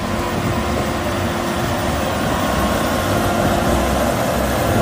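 Tractor engine running steadily: an even low rumble with a faint steady hum over it.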